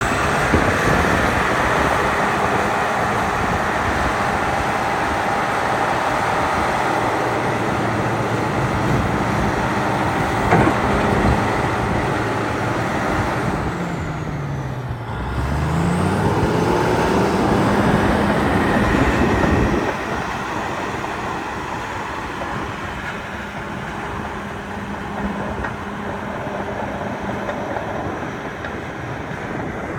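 2004 Caterpillar D8R crawler dozer's six-cylinder diesel engine running loudly. About halfway through, the engine speed drops and then climbs back up. The sound is a little quieter for the rest of the stretch.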